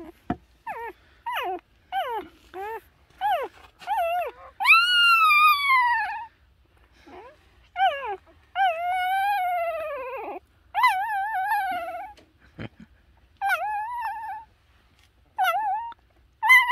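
Newborn Doberman puppies crying: a quick run of short, falling squeaks, then longer, loud, wavering wails of a second or two each. This is the loud puppy crying typical of a large breed.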